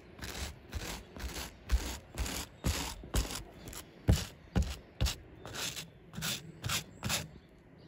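Small red-handled wire brush scrubbing back and forth over old, dirty carpet pile, loosening embedded crud. About two rasping strokes a second, stopping shortly before the end.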